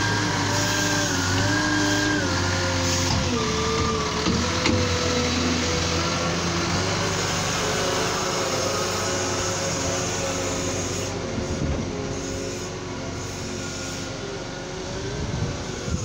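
Liebherr L554 wheel loader's diesel engine running with a whine that shifts up and down in pitch while the bucket works close by. It grows quieter from about eleven seconds in as the machine moves away.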